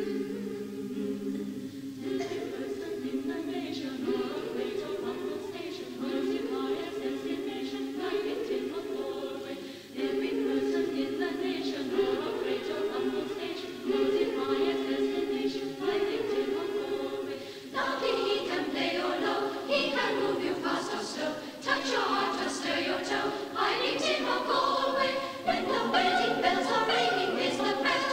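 A choir of amateur singers singing together, heard from an old reel-to-reel tape recording. The singing pauses briefly about a third of the way in and grows louder and fuller from about two-thirds through.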